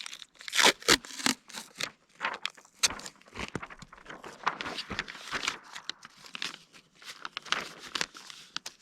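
Irregular rustling, crinkling and scraping of gear being handled close to the microphone, with sharper clicks and knocks in the first second or so.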